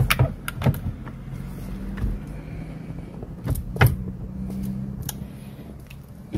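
Scattered clicks and knocks of steering-wheel parts and wiring being handled and fitted by hand, the loudest pair a little past the middle, over a steady low hum.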